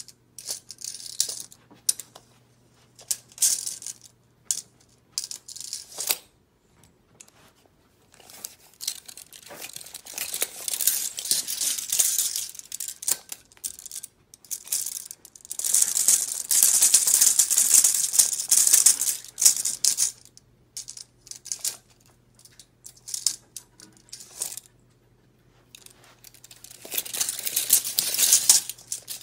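Metallic rattling and jingling from a ferret playing with an extended steel tape measure on carpet. It comes as scattered clicks for the first several seconds, then three longer bouts of rattling, the loudest in the middle.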